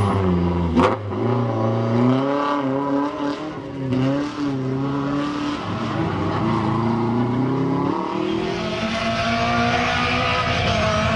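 BMW E30 M3 rally car's four-cylinder engine revving hard and rising and falling through gear changes as it passes and pulls away, with a sharp crack about a second in. Near the end a steadier engine sound takes over.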